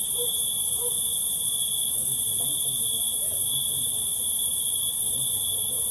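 Crickets chirring in a steady, unbroken chorus: a constant high trill, with an even higher hiss of more insects above it.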